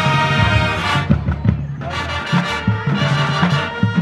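High school band playing a tune on brass instruments with drums.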